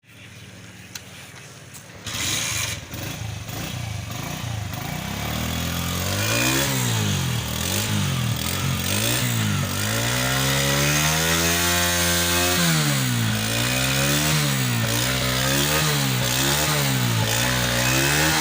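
Honda CG 125's single-cylinder four-stroke engine catching about two seconds in, then revved over and over: throttle blips that rise and fall about once a second, one longer rev held in the middle, then quicker short blips near the end.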